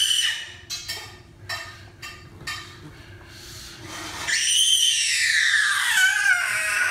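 A young child's long, high-pitched wail starts about four seconds in, sliding slowly downward in pitch. A few soft knocks come before it.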